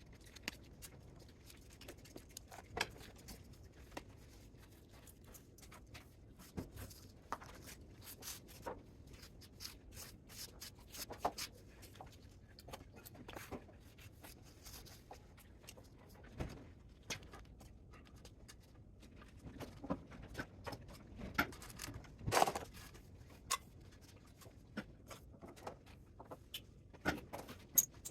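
Scattered light clicks, taps and rubbing of small metal parts and hand tools being handled during a teardown, with a louder knock about three-quarters of the way through.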